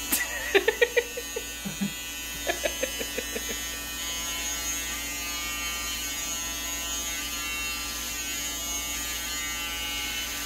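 Corded electric hair clippers buzzing steadily while cutting hair. In the first few seconds there are two short bursts of laughter.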